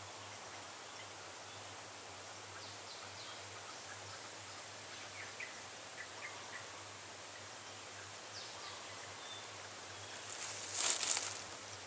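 Quiet outdoor forest ambience: a steady hiss with scattered faint, short high chirps. About eleven seconds in, a loud, brief rustling burst, the loudest sound here.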